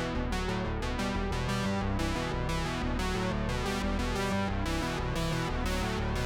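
Background music: synthesizer and keyboard notes over a steady beat.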